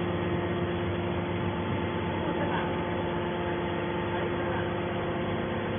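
Hydraulic baler's power unit running with a steady hum of several fixed tones, faint voices in the background.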